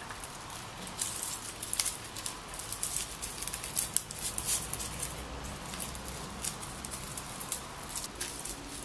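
Lemongrass leaves rustling and crinkling as hands fold and twist them into a knot, many small irregular rustles over a steady faint hiss.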